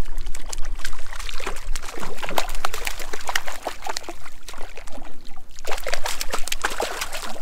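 A hooked brook trout thrashing at the water's surface, throwing up quick irregular splashes that ease off about four seconds in, then pick up again.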